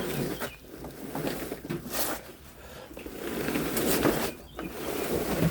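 Clutter being moved by hand: irregular rustling and scraping with a few knocks.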